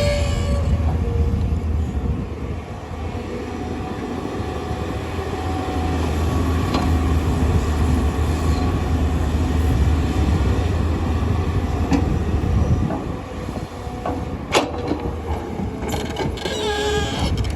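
Tata Hitachi hydraulic excavator's diesel engine running under load, a steady low rumble with metallic squeals and clanks from the working machine. The rumble drops off about thirteen seconds in, and a sharp knock follows soon after.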